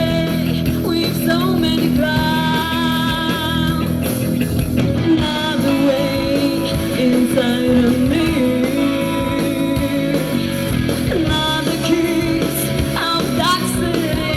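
Rock song played by a band: guitars with a sung vocal line holding long, wavering notes.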